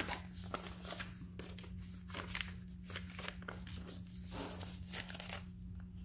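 Paper and fabric pages of a handmade journal rustling and crinkling as they are handled and unfolded, in irregular bursts.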